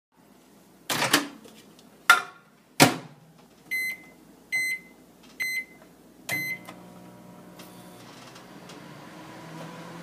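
A microwave oven: a few loud knocks, then four keypad beeps about a second apart as a one-minute cook time is entered and started, then the oven's steady low hum as it begins running.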